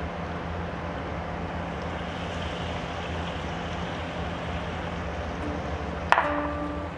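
Hot oil sizzling steadily as batter-coated banana fritters deep-fry and extra batter is dripped in to make a crunchy crust, over a steady low hum. About six seconds in, a sharp sound and music start.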